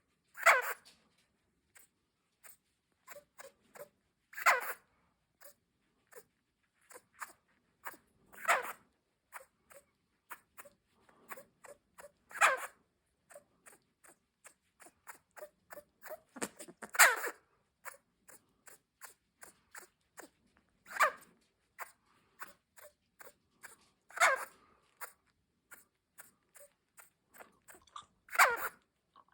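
Senegal galago (lesser bushbaby) calling: a short, sharp call repeated about every four seconds, eight times, with faint clicks in the gaps.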